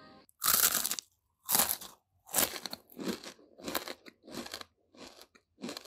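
A crisp fried banana-stem chip being bitten about half a second in, then chewed: a series of dry crunches, roughly three every two seconds.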